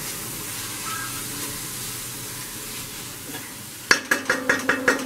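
Onion, tomato and spice masala sizzling gently in a kadai on a low flame while it is stirred with a spatula. A little under four seconds in comes a quick run of about eight sharp, ringing knocks as the spatula strikes the pan.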